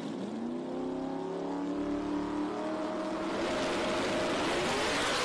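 Drag race cars' V8 engines, among them a 2011 Mustang GT's Boss 302–based Coyote, at the starting line. The revs rise in the first second and are held steady while the cars sit staged, then the sound swells into a loud, broad rush from about three seconds in as the engines go to full throttle for the launch.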